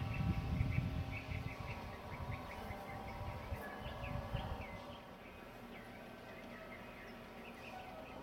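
Small birds chirping over and over in short high notes, over a steady buzzing hum that wavers slightly in pitch. A low rumble fills the first half and dies away about five seconds in.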